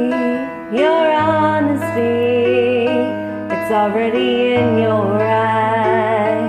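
A woman sings slow, long held notes with vibrato over a karaoke backing track, taking a short breath about half a second in. Sustained keyboard and bass notes underneath change twice.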